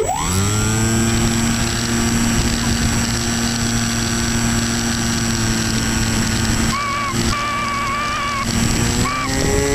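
Easystar 2 RC plane's electric motor and pusher propeller, heard from the onboard camera: the motor spools up sharply at the start, then runs at a steady pitch with air rushing past, climbing a little in pitch near the end.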